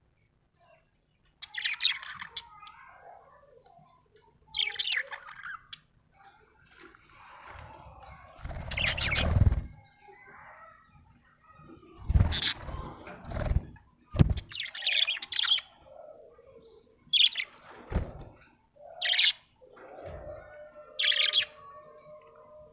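Budgerigar chirping in short, high bursts every couple of seconds, with several louder thumps and rustles mixed in. The sound cuts off abruptly at the end.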